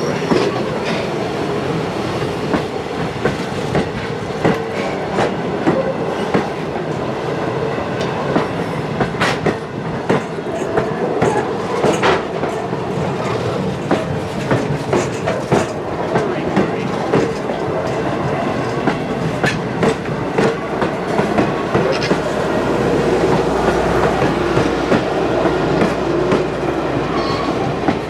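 A train's steel wheels rolling and clicking over rail joints in a steady, repeating rhythm, under a continuous rolling rumble. The rumble grows deeper and louder in the last few seconds.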